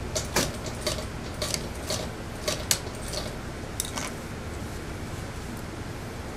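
Metal scissors snipping: about ten sharp, irregularly spaced clicks in the first four seconds, over a steady background hum.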